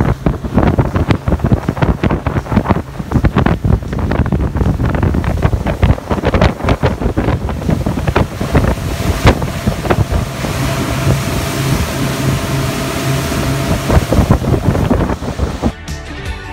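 A motorboat running at speed across open water, wind buffeting the microphone hard; a steady drone from its Suzuki 175 outboard comes through in the second half. Music comes in near the end.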